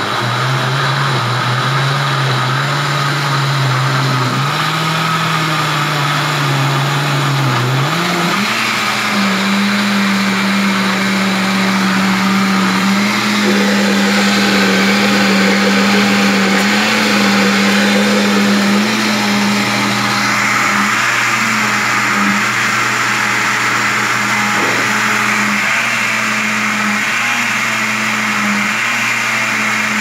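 Arno Power Max 1000 countertop blender running continuously, blending raw carrots with eggs and oil into carrot cake batter. The motor's steady hum rises in pitch about eight seconds in and then holds steady as the carrots are reduced to a smooth batter.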